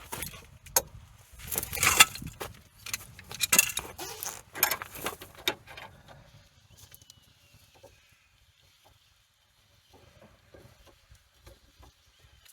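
Metal clinking and jangling of hand tools and cable hardware, as the carriage cable is being worked on and tightened. It is loudest in the first half, then thins to a few light taps.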